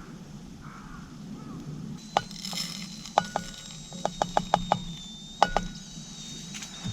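Metal camp cookware clinking: about a dozen sharp, ringing taps and knocks, starting about two seconds in and bunched together around the middle.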